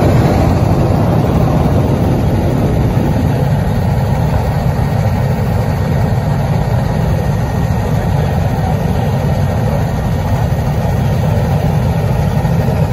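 Helicopter cabin noise in flight, heard through a phone's microphone: a loud, steady rumble of rotor and engine.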